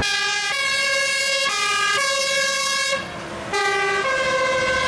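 Fire engine's two-tone siren sounding, alternating a short lower note with a longer higher note. There is a brief break about three seconds in.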